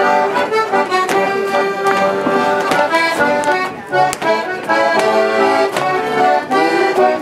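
Live accordion playing a traditional tune for rapper sword dancing, with frequent sharp taps in time with it.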